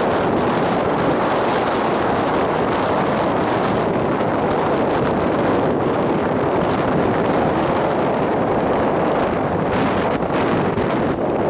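Strong wind buffeting the microphone in a steady rush, over waves breaking on the shore.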